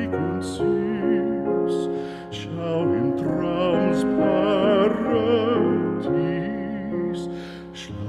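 Background music: a slow, gentle piece with a wavering melody over sustained chords.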